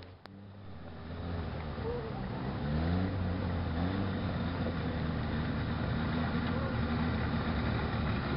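Lifted pickup truck's engine approaching on a gravel trail, revving in a few short rising pulls a couple of seconds in, then running steadily and growing louder as it nears.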